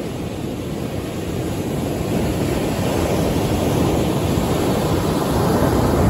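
Ocean waves breaking and washing up a sandy beach: a steady rush of surf that swells louder toward the end.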